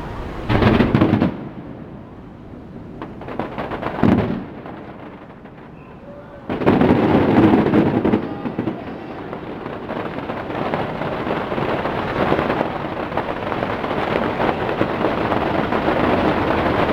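Aerial fireworks shells bursting: loud booms about half a second in and again about four seconds in, then from about six and a half seconds a continuous dense run of bangs and crackling.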